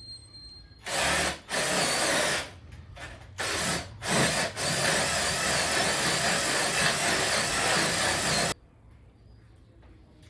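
Cordless drill running into plywood in several short runs, then one long steady run of about four seconds that stops abruptly.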